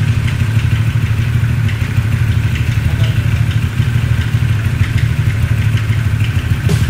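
Vehicle engine idling with a steady low rumble while it waits at a drive-thru window.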